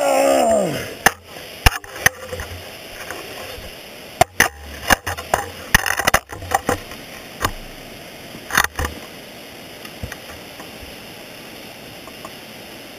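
Ice axe picks and crampons knocking and scraping on rock while dry tooling: irregular sharp clicks and scrapes, bunched together between about four and seven seconds in and once more near nine seconds, then quieter. At the start a person's voice slides down in pitch in a strained groan.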